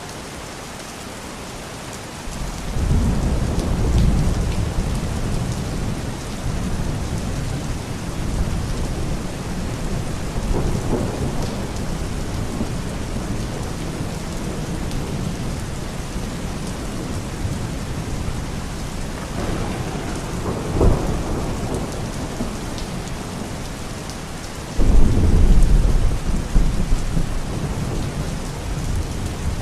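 Steady rain with thunder. A low rumble of thunder rolls in about two seconds in, there is a brief crack about two-thirds of the way through, and a louder, sudden peal of thunder breaks near the end.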